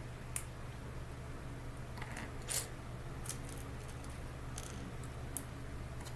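A few sharp, scattered plastic clicks and light rattles of LEGO pieces being handled and snapped together, over a steady low hum.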